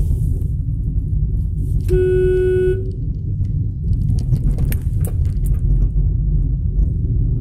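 Steady low rumble of a car's engine and tyres, heard from inside the cabin while driving. About two seconds in, a vehicle horn sounds once for just under a second.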